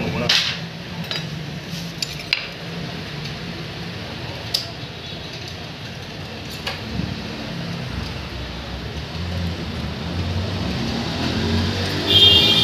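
Scattered metal clinks and taps of needle-nose pliers against the cam sprocket and timing parts in a motorcycle engine's cylinder head, over a steady low hum. About twelve seconds in, a louder high-pitched sound with several tones sets in.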